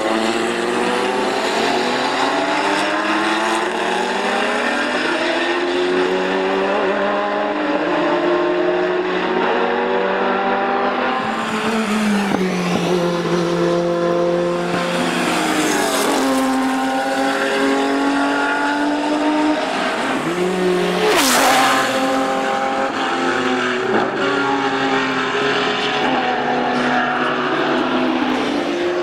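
Ferrari 512 BB LM race cars' flat-12 engines at racing speed, passing by. The pitch climbs through the gears and falls away on the downshifts. A sharp crack comes about twenty-one seconds in.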